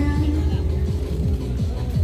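Music with a heavy bass and many sliding tones.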